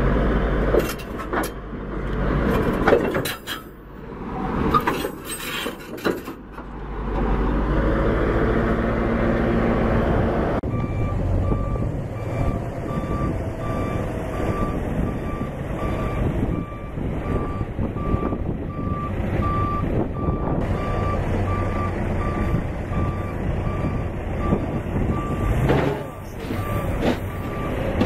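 A heavy diesel engine running, with knocks and clanks and a brief rev. About ten seconds in, a backup alarm starts sounding a steady series of beeps over the engine as the machine reverses.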